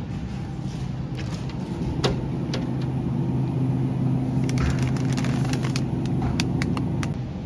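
Steady low hum of supermarket refrigerated display cases, with crinkling and clicks of a plastic-wrapped pasta kit being handled in the second half.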